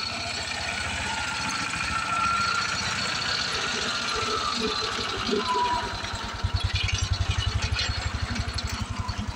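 Ransomes MG-5 crawler tractor's single-cylinder engine running with an even, rapid beat that grows louder and more distinct about six and a half seconds in.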